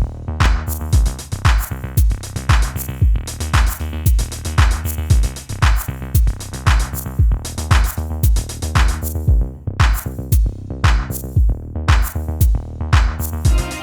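Background music with a steady, programmed drum-machine beat under pitched melodic instruments.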